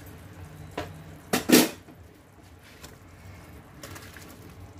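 Kitchenware clatter: a light click, then one loud sharp knock of a dish or bowl about one and a half seconds in. Near the end there is a short rustle as fried chicken pieces are tipped from a bowl into a pan of sauce.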